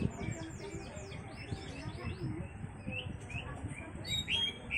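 Small birds chirping: quick runs of short, high, falling chirps, busiest at the start and again near the end.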